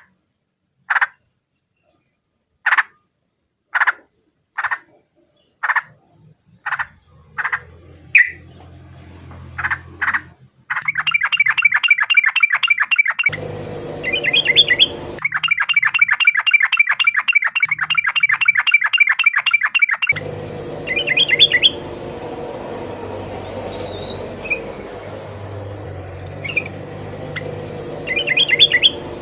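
Yellow-vented bulbul (trucukan) calling: single sharp notes about a second apart, then, about ten seconds in, a long fast chattering run of repeated notes. Shorter rapid bursts follow over a low steady hum.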